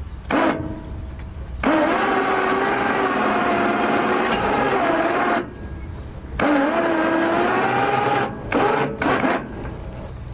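Long, wavering mechanical squeal in two stretches of a few seconds each, with short knocks and clatters around it.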